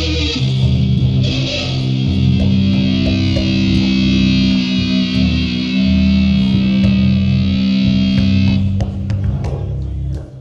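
Live stoner rock band playing an instrumental passage: electric guitar and bass guitar holding low notes under a steady high wash. Near the end the held wash cuts off and the playing turns sparser, with separate sharp hits.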